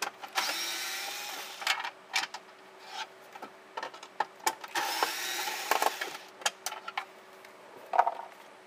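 Small cordless power screwdriver whirring in two spells of about a second and a half each, backing out the two Phillips screws that hold the center console trim. Short clicks and knocks of handling fall between the spells, with a louder knock near the end.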